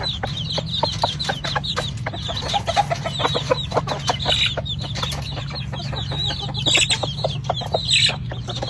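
Many chickens clucking and calling at once, a constant overlapping chatter of short calls, with a few louder squawks about halfway through and near the end. A steady low hum runs underneath.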